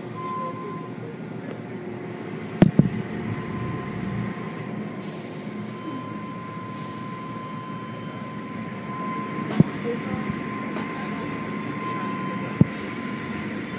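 Automatic tunnel car wash running: a steady rush of water spray and machinery with a thin steady whine, broken by a few sharp knocks, two close together about three seconds in, one near ten seconds and one near the end.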